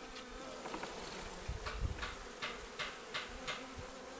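Honeybee colony in an opened hive humming steadily, with a series of short scraping rustles and a dull thump through the middle.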